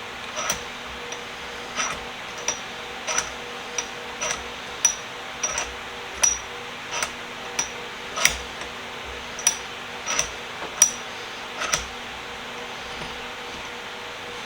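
Light metallic clicks, one every half second to a second, each with a faint high ring, stopping near the end: typical of a small bench vise's handle and screw being worked back and forth. A steady fan hum runs beneath.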